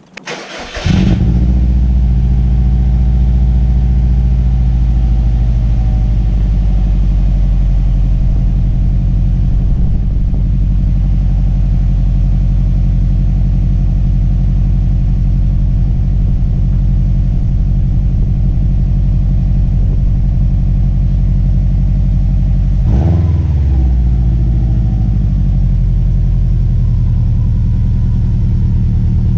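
A Subaru WRX turbocharged flat-four engine, breathing through an aftermarket catback exhaust, starts about a second in and then idles steadily. About three-quarters of the way through there is a brief throttle blip that falls back to idle.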